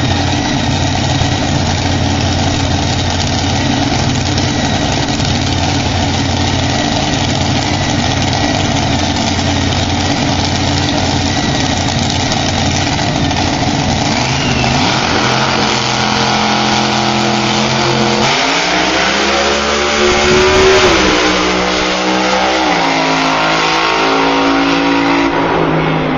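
Supercharged alcohol-burning engine of a Top Alcohol dragster idling steadily on the starting line, then revving up about fifteen seconds in as the car launches, its pitch climbing, dipping and climbing again as it accelerates away down the quarter mile.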